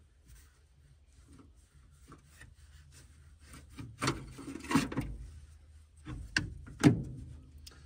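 A car battery being shifted and set down in the engine bay, plastic case scraping against metal, with several knocks about four to five seconds in and again near seven seconds, the last the loudest.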